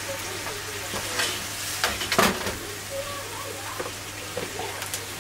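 Mackerel, asparagus and mushrooms sizzling in a non-stick frying pan while a spatula stirs them, with short knocks and scrapes of the spatula against the pan, loudest about two seconds in.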